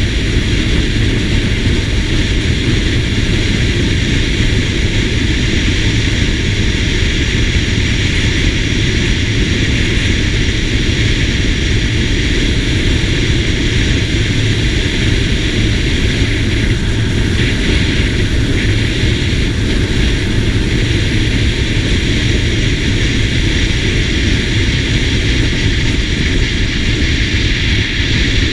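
Steady rush of wind on the microphone over the drone of a SYM GTS 250 scooter's single-cylinder engine, cruising at constant road speed.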